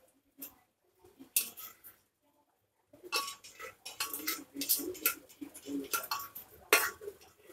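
A utensil scraping and knocking against the inside of a metal pressure cooker as cooked green beans and potato sabji is emptied into a bowl. One sharp clink comes about a second and a half in, then a busy run of scrapes and knocks from about three seconds on, with a light metallic ring and the loudest knock near the end.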